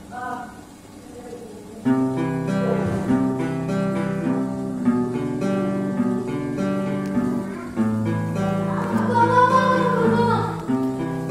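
Background music: plucked guitar, faint at first, then coming in much louder about two seconds in, with a singing voice near the end.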